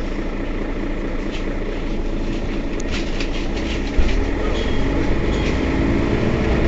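Mercedes-Benz Citaro city bus engine running at a stop, a steady low rumble with light ticks over it. About four seconds in there is a thump, and the engine note grows louder and rises.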